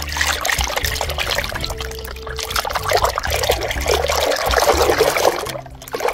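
Water pouring and splashing, loudest from about three to five seconds in, over steady low background music.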